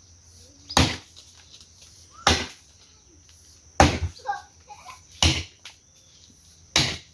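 Wood being chopped: five sharp blows at an even pace, about a second and a half apart.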